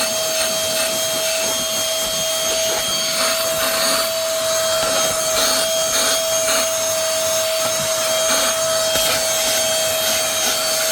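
Cordless handheld car vacuum running steadily with a constant motor whine and rushing air, as its crevice tool rubs and scrapes over car interior surfaces.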